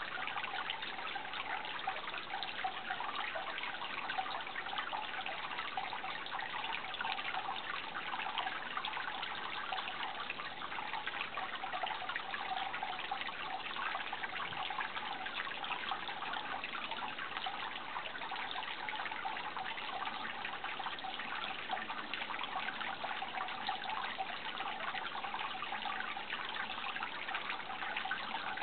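Running water trickling steadily, without a break.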